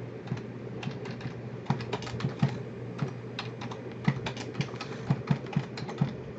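Typing on a computer keyboard: irregular key clicks in short quick runs.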